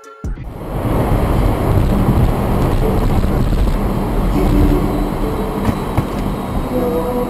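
Steady road and engine noise inside a car moving at highway speed, as a dashcam picks it up: a loud, even low rumble. It starts about a third of a second in, just after a brief tail of music.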